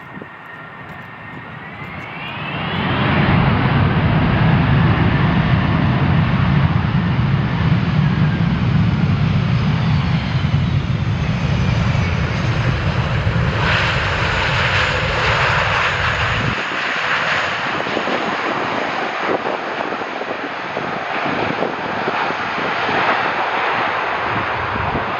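Jet airliner coming in to land, passing close by: a faint engine whine bends upward in pitch, then a loud, steady engine rumble takes over. About two thirds of the way through, the deep rumble drops away and a rushing jet roar carries on.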